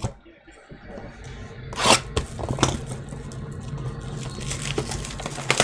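A cardboard Panini Absolute Basketball trading-card box being pried and torn open by hand: scraping and tearing of the cardboard flap, with a sharp rip about two seconds in.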